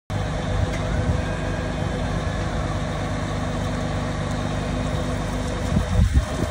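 Scania lorry's diesel engine running steadily, driving the Hiab loader crane's hydraulics, with some louder irregular noises near the end.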